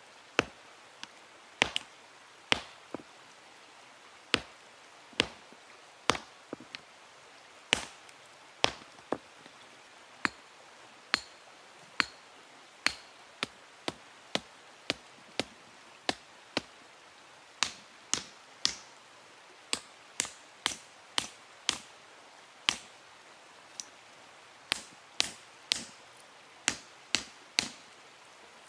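Hand-held stone hammer striking hot steel on a stone anvil while forging: a long run of sharp, separate blows, about one a second at first and quickening to roughly two a second in the second half, some with a brief high ring.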